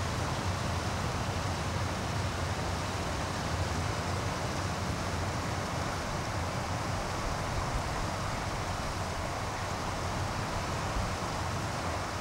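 Steady rushing background noise with a low rumble underneath, unchanging throughout; no bird calls.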